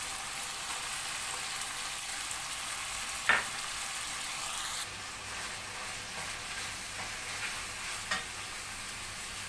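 Beef liver strips sizzling in hot oil in a frying pan, with chopped garlic and sliced green pepper just added. A single sharp click about three seconds in, the sizzle easing a little about halfway, and faint ticks of a wooden spoon stirring near the end.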